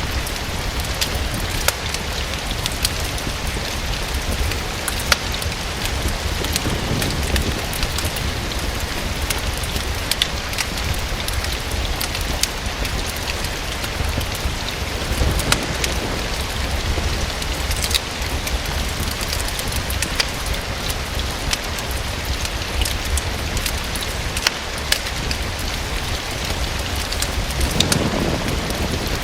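Steady rain falling, with many scattered sharp ticks over it and a low rumble underneath that swells briefly twice.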